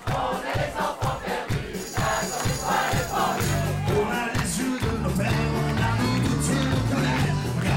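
Live band and audience: the crowd sings along over a steady drum beat, then the full band comes in about three and a half seconds in, with held bass notes under it.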